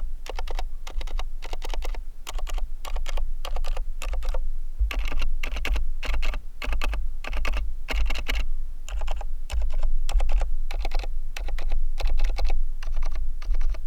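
Cherry MX 2.0S Wireless Pro mechanical keyboard with Cherry MX2A Red linear switches being typed on, fast runs of keystrokes broken by short pauses.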